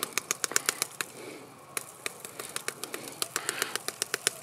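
A dull knife sawing and hacking through a woody thorn-bush stem: a rapid, irregular run of sharp clicks and cracks, several a second, with a short pause about a second in before the cutting resumes.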